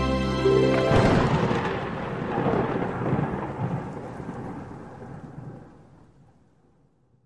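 Intro music ending in a short rising sweep, then a loud crackling rumble about a second in that slowly dies away over some six seconds.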